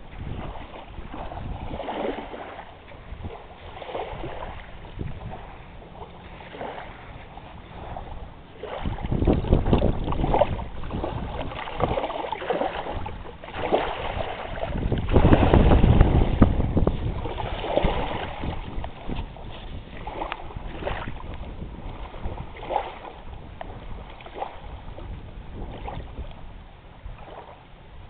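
Small waves lapping on a sandy shore, coming in every couple of seconds. Wind buffets the microphone as a low rumble about a third of the way in and again, louder, around the middle.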